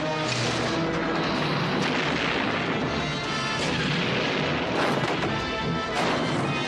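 Film battle sound effects of repeated explosions and gunfire, heard over dramatic background music.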